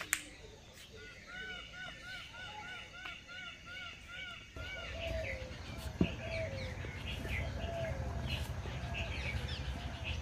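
Birds chirping: one call repeats about twice a second, with other calls above it. About halfway through, the sound changes suddenly to a low rumble with different, lower bird calls. A sharp click comes at the start and another about six seconds in.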